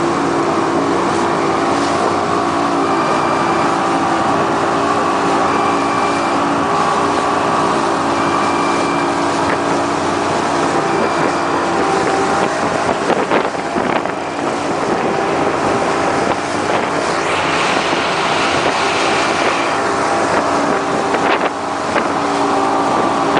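Speedboat's large outboard motor running steadily at speed, with the rush of water and wind on the microphone. A few brief knocks come around the middle and near the end.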